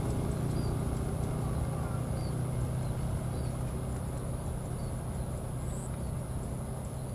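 Distant jet airliner engines, a low steady rumble fading slowly, typical of a jet that has just taken off and is moving away. A small bird chirps faintly a few times over it in the first few seconds.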